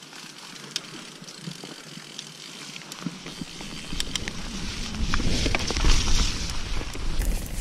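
Transition TR500 downhill mountain bike setting off down a dirt trail: scattered clicks and rattles from the bike over tyre noise, with rumble from rolling and wind growing louder from about three seconds in as it picks up speed.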